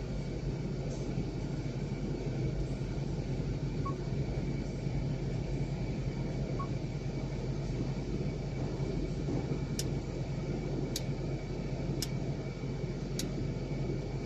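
Steady low hum inside a vehicle cabin. From about ten seconds in, four sharp ticks come about a second apart.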